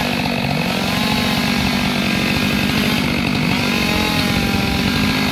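Stihl MS 462 two-stroke chainsaw running steadily, its engine pitch wavering slightly up and down.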